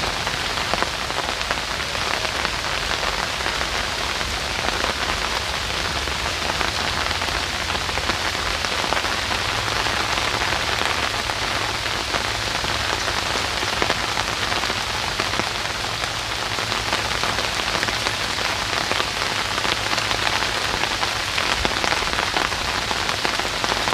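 Steady rain falling on a deck, a dense even patter of drops over a low steady rumble.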